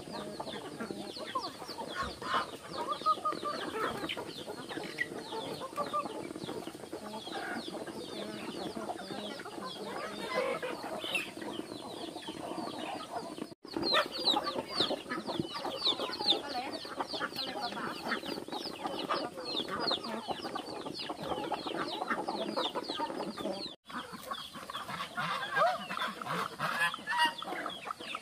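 A flock of chickens and ducks feeding from basins of grain: continual hen clucking over many quick pecks and bill-snaps at the feed.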